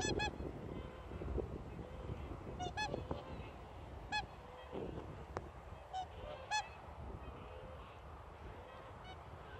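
Whooper swans calling: about eight short, bugling honks come irregularly, several in quick pairs. The uploader takes them for a parent bird's pre-flight calls, signalling the flock that it will soon take off.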